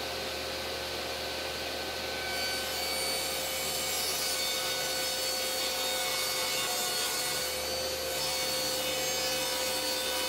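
Table saw running and ripping a large plywood panel. The cutting noise gets fuller about two seconds in as the blade enters the wood, then carries on steadily over the motor's hum.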